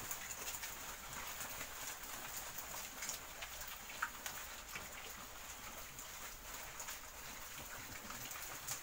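Pigs munching and snuffling leafy vines, a steady patter of small wet chewing clicks, with one sharper click about four seconds in.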